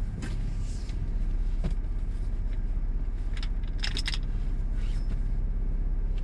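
Car running, a steady low rumble heard from inside the cabin, with a short burst of metallic jingling and clicks about three and a half to four seconds in.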